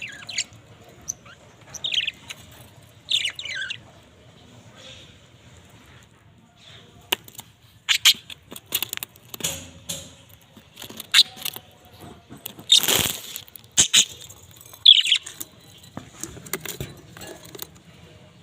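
Pet budgerigars chirping in short, high calls, some sliding down in pitch, among scattered sharp clicks and a brief flutter of wings about two-thirds of the way in.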